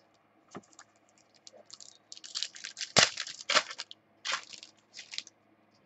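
Trading cards and their packaging being handled: an irregular run of rustling, crinkling and sliding sounds, busiest in the middle, with one sharp click about three seconds in.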